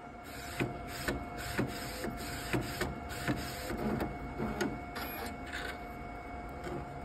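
Edible-ink food printer printing: a run of sharp, regular clicks about two a second as the print head works, over a steady hum. The clicking stops about a second before the end while the hum goes on.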